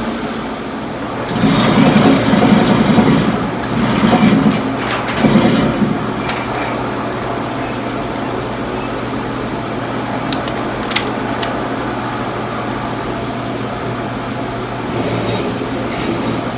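A steady low mechanical hum, with three louder stretches of rushing noise in the first six seconds and a few faint clicks later.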